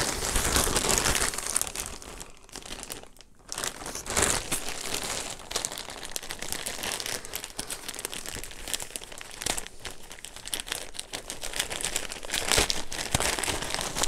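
Grey plastic mailer bag crinkling and rustling as it is pulled at by hand to tear it open, with a brief lull about three seconds in.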